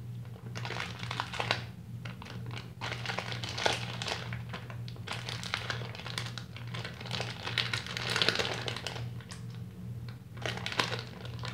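Plastic zip-top bag crinkling and rustling as it is handled and pulled open, in irregular small crackles and clicks. A low steady hum runs underneath.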